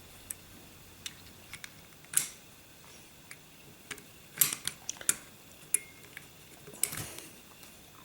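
Metal parts of a Norinco 213 pistol clicking and ticking as they are handled during reassembly: scattered sharp clicks, with a quick cluster about halfway through and another near the end.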